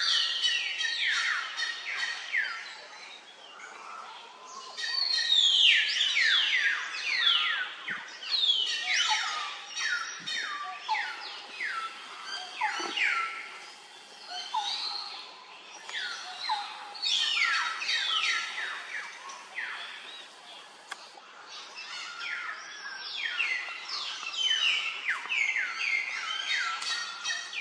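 Repeated shrill animal calls, each sliding down in pitch, in overlapping bouts of several with short lulls between.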